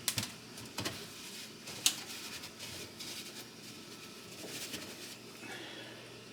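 A few sharp clicks and knocks, the sharpest about two seconds in, among soft rubbing and scraping sounds, as of range hood parts and grease screens being handled and wiped.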